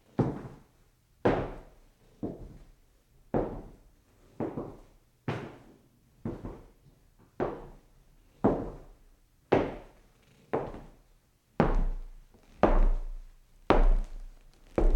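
Distant footsteps on a wooden floor: an even walk of about one step a second, each step a dull knock with a short echoing tail.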